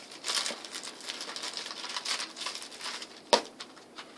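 Packaging being handled and rustled during an unboxing, with irregular crinkling and small clicks, and one sharp knock about three seconds in.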